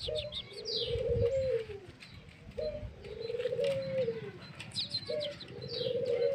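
A dove cooing: three two-part coos about two and a half seconds apart, each a short note followed by a longer one that rises and falls. High, quick chirps from small birds, the free-flying yellow white-eyes in the tree, come in between.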